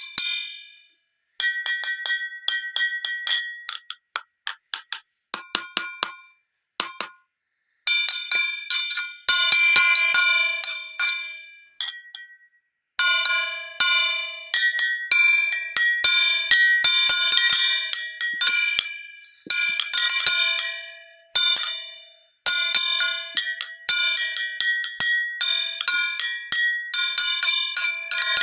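Glass bottles being struck one after another, each strike ringing out as a bell-like note that fades. Several different pitches are played, with short pauses between runs and a flurry of quick light taps a few seconds in.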